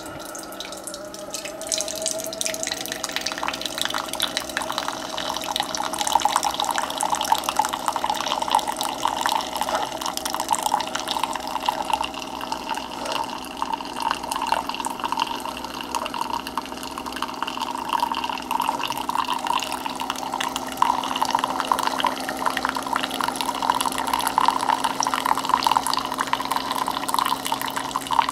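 Keurig K Express single-serve coffeemaker brewing a 10-ounce cup: hot coffee streams and spatters into the cup over a steady hum, building up in the first two seconds.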